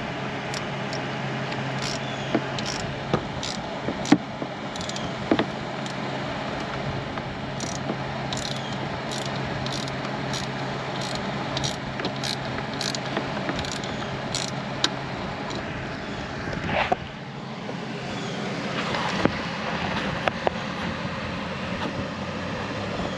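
A hand ratchet with a T27 bit on an extension clicks as it backs out a screw, in a regular run of about two clicks a second through the middle. A brief scrape follows near the end, over a steady background hum.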